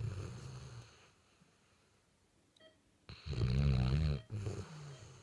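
Basset hound snoring in deep sleep: a snore fading out at the start, a pause, then a loud snore about three seconds in that wavers in pitch and trails off into a softer breath.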